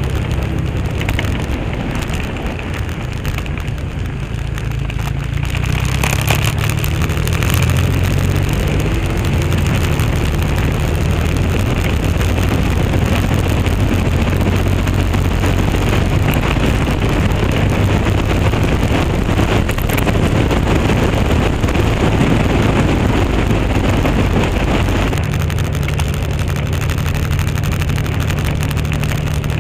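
Cruiser motorcycle engine running at road speed, with wind rushing across the microphone. The wind noise swells about six seconds in and drops away near the end, while the low engine note stays steady.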